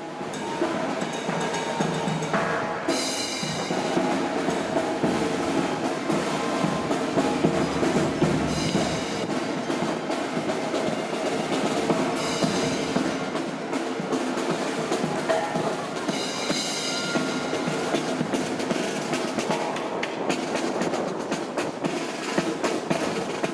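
Live brass band music with snare drum rolls and other percussion, played outdoors by a marching band. Strong wind rumbles and buffets the microphone over the music.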